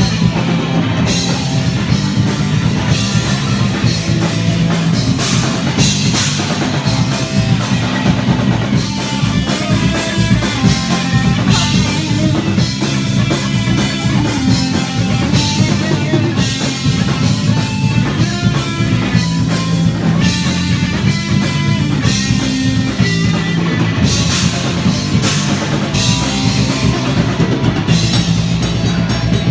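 Loud rock music played by a band on drum kit and guitar, continuous throughout.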